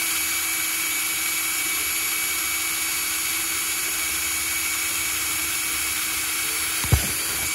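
An electric drill runs at a steady speed with a constant motor whine, its bit boring through a thin plastic tackle-box lid. There is a brief thump about seven seconds in, and the drill stops right at the end.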